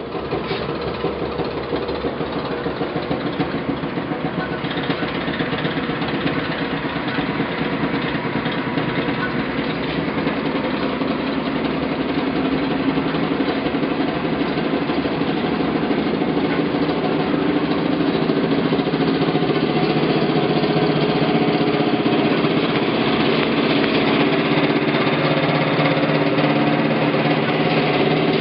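20-inch DoAll 2013-V vertical bandsaw running under its 2 hp motor: a steady machine sound that grows gradually louder.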